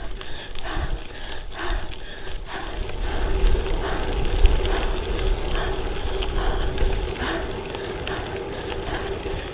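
Lauf Anywhere gravel bike being ridden on a gravel road, with a continuous low wind rumble on the microphone, tyre and drivetrain noise, and a faint steady hum, the rumble strongest in the middle.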